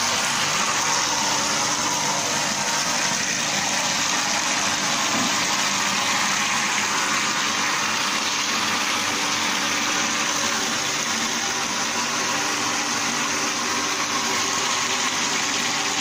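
Soybean washing machine running steadily: its motor hums under the rush of wash water pouring from a curved spout into a tray of soybeans.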